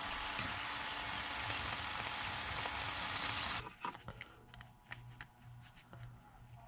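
Cordless drill running steadily as it drills out a hole in a 3D-printed plastic bracket, stopping suddenly after about three and a half seconds. Faint handling clicks follow.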